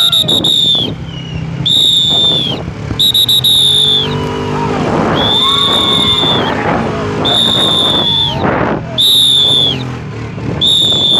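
A whistle blown in repeated blasts of about a second each, seven times, some of them fluttering into a quick trill.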